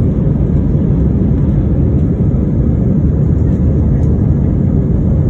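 Steady low roar inside the cabin of an Airbus A320ceo climbing out after take-off: engine and airflow noise.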